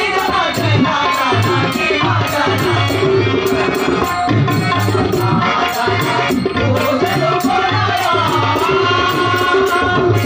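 Devotional bhajan singing: a male voice with harmonium accompaniment and tabla drumming. A bright clicking beat keeps time throughout.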